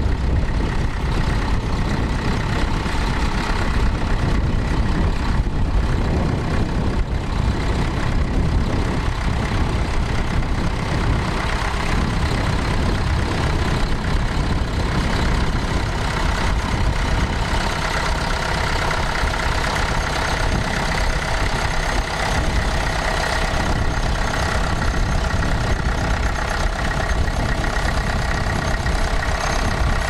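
Vintage Massey Ferguson tractor engine running steadily under load, pulling a mounted plough through grassland.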